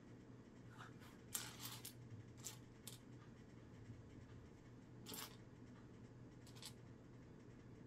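Small plastic Lego pieces clicking and rattling against each other as a hand sifts through a loose pile of parts: faint, scattered clicks in a few short bursts.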